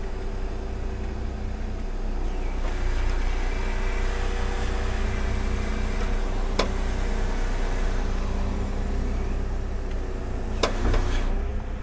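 Timber truck's diesel engine running steadily while the hydraulic timber crane is worked, with a hiss of hydraulic flow coming in about two and a half seconds in as the crane turns on its swivel stand. A sharp click about six and a half seconds in, and a couple more near the end.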